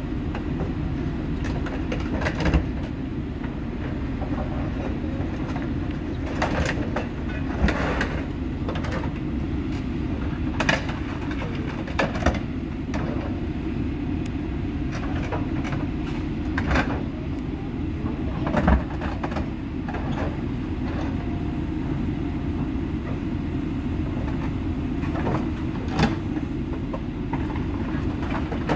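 Steady low rumble of a moving school bus, with frequent rattles and clunks scattered through it.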